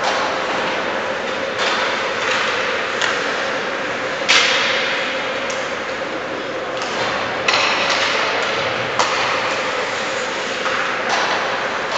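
Ice hockey play in a rink: skates scraping on the ice over a steady hum, with several sharp knocks of sticks, puck or boards, the loudest about four seconds in.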